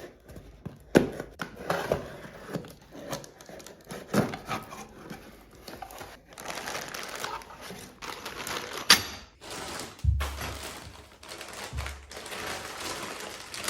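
Packaging rustling and crinkling as flat-pack solid pine bed parts are unpacked from their box, with scattered knocks and clicks of the pieces being handled and a couple of low thuds about ten and twelve seconds in.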